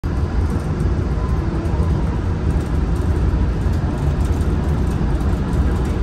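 Walt Disney World monorail train running along its beam: a steady low rumble of the moving train.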